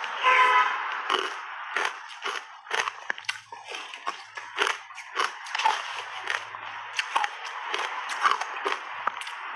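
Close-miked crunching of shaved ice dusted with matcha powder, bitten and chewed in big mouthfuls, with sharp, irregular crunches throughout. A brief pitched sound just after the start is the loudest moment.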